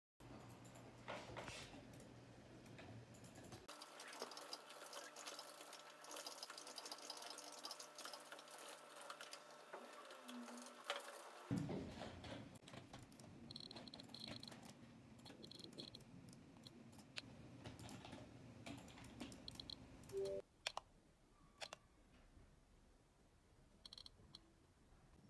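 Faint, irregular clicking and handling noise as an iPod mini is operated by hand, its click wheel and buttons pressed.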